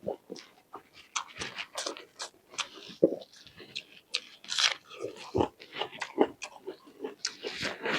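Close-miked chewing and biting of food, a run of irregular crunches and mouth clicks.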